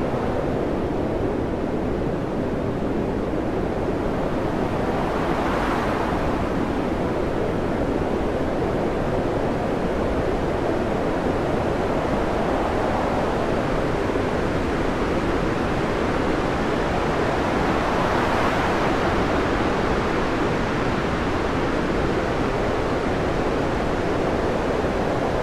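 Storm wind and heavy seas: a steady rushing noise of wind and breaking water that swells about six seconds in and again around eighteen seconds.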